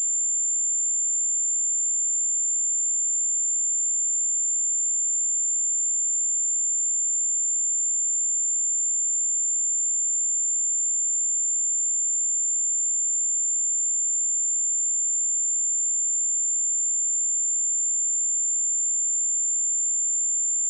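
A pure 7237 Hz sine-wave test tone, a single steady high-pitched note held without change.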